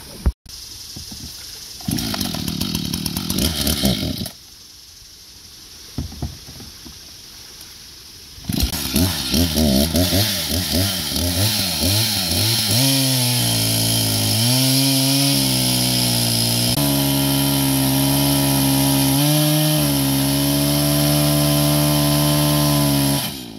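About two seconds in, a two-second rush of noise; then a gasoline chainsaw runs, its pitch wavering up and down before it holds at high speed cutting into a waterlogged log, dipping briefly a few times under load, and cuts off abruptly near the end.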